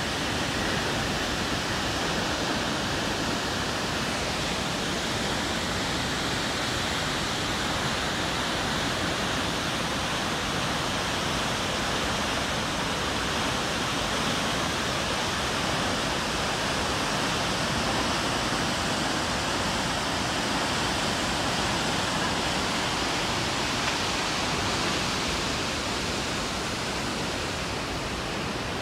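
Brandywine Falls pouring down, heard as a steady, even rushing of falling water.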